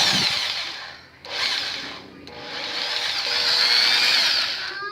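Electric jigsaw's motor run in short bursts with the trigger: a burst dies away in the first second, a short burst comes about a second in, then a longer run of about two and a half seconds that stops near the end, its whine rising and falling in pitch as it speeds up and slows down.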